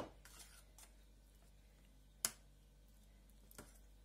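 A few light clicks of a metal spoon against a metal salad ring while mayonnaise is spread over the layer. The sharpest and loudest click comes a little over two seconds in; between the clicks it is near silence.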